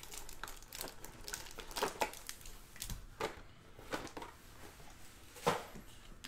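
Trading-card packs and their cardboard box being handled: crinkling and rustling as the packs are pulled out of the box and stacked, with a few sharp taps, the loudest about five and a half seconds in.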